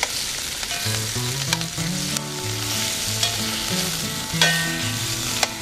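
Bacon and meat frying, sizzling steadily in a lot of rendered fat, with a few sharp clicks. A simple tune of held notes plays quietly underneath.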